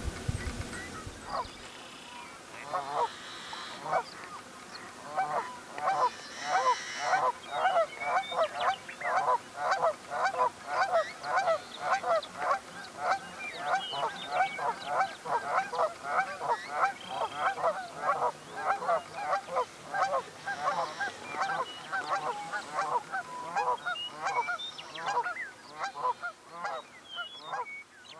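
Yellow-headed blackbirds calling: a dense, irregular run of short call notes, several a second and overlapping, starting about two seconds in and going on almost to the end, with a few higher, scratchier notes among them.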